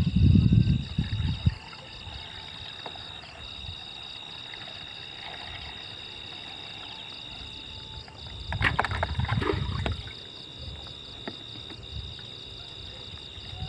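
Liquid sloshing and pouring from a plastic pail into a sprayer tank, in a loud spell at the start and again about eight seconds in with a few knocks of the pail. Crickets trill steadily in the quieter stretch between.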